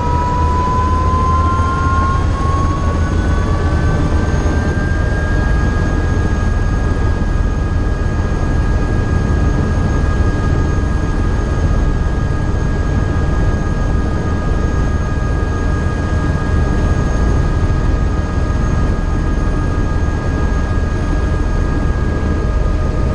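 Eurocopter EC130 EcoStar helicopter running loud and steady, its rotor giving a heavy low rumble under the high whine of its turboshaft engine; the whine rises in pitch over the first five seconds or so, then holds level.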